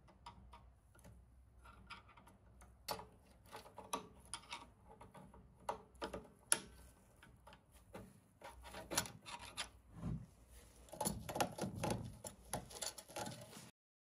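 Irregular light clicks and knocks over a faint steady hiss, coming thicker and louder in the last few seconds before cutting off abruptly.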